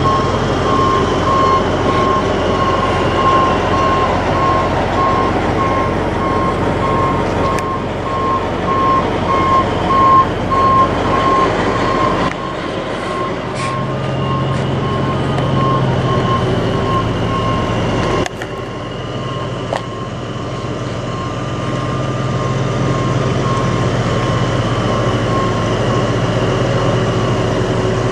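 Heavy diesel semi-truck engine idling steadily close by, with a rapidly repeating high electronic beep over it, clearest in the first half.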